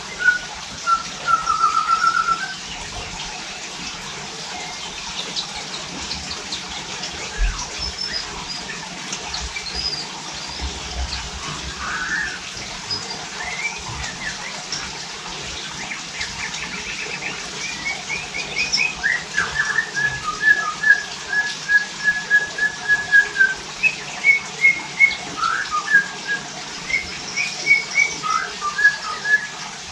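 White-rumped shama (murai batu) singing: clear whistled phrases, then in the second half louder, quicker runs of rapid repeated notes, over a steady hiss.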